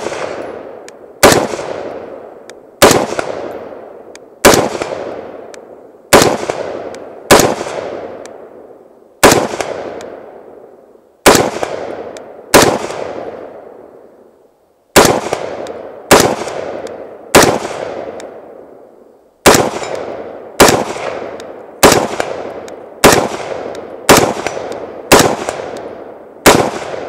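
Huldra Mark IV AR-15 rifle in 5.56 firing about twenty semi-automatic shots, roughly one a second, with one longer pause midway. Each crack trails off in a long echo. The rifle cycles round after round without a stoppage.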